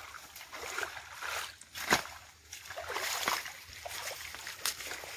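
Footsteps wading through shallow, muddy swamp water: irregular sloshing and splashing, with one sharp click about two seconds in.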